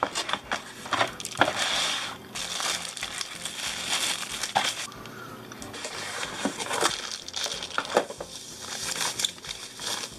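Plastic packaging crinkling and a cardboard box being handled while a computer mouse is unwrapped from its plastic bag, with scattered light clicks and knocks.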